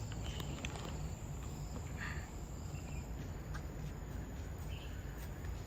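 Park ambience: a steady high-pitched insect buzz, with a few faint chirps and a low rumble underneath.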